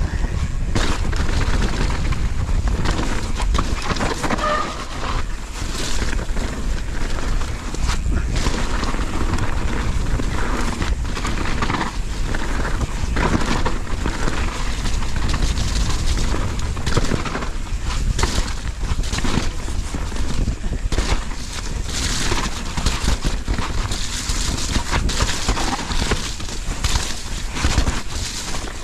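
YT mountain bike descending a rough dirt and rock trail, heard from a camera on the rider: tyres rumbling over dirt and gravel, with frequent knocks and rattles as the bike hits rocks. Wind buffets the microphone.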